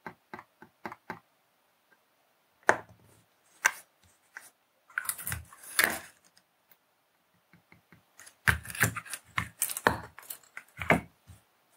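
Scattered clicks and light taps of metal tweezers, a soldering iron and a small circuit board being handled and set down on a work mat, in irregular clusters.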